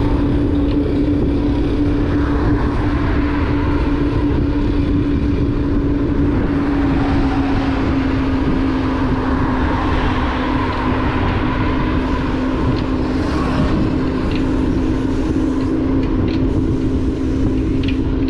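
Motorbike engine running steadily at cruising speed, its hum sinking slightly in pitch about halfway through, under a heavy rumble of wind on the microphone.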